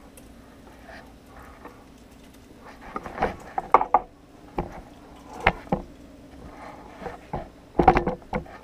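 Scattered knocks and clatters of things being handled in a kitchen, with a cluster of knocks near the end, over a steady low hum.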